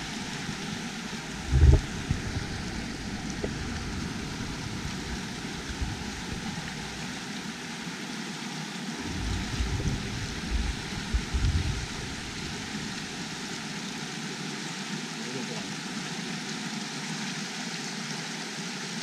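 Shallow rocky creek rushing over rapids: a steady watery hiss. A few low thumps break in, the loudest about two seconds in and a cluster around ten seconds.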